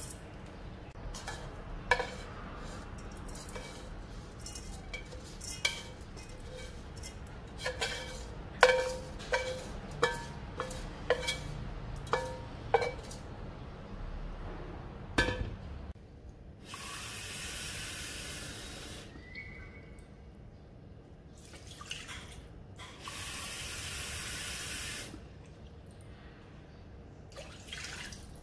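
A spatula scooping and knocking against the metal inner pot of a rice cooker, a dozen or so sharp clanks with a brief ring, then one heavier knock. Later come two bursts of running water, each about two seconds long.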